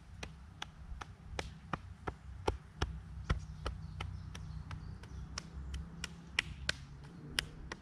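Rhythmic self-massage tapping with the hand along the arm's meridians, about three pats a second, over a low rumble of wind on the microphone.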